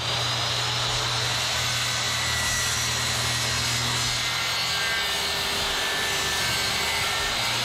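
Handheld circular saw running steadily under load as it cuts along a line through a fiberglass-skinned Coosa composite board.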